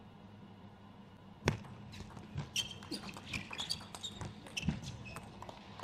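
Table tennis serve and rally: a sharp click about a second and a half in, then a fast run of clicks as the plastic ball strikes the rackets and the table.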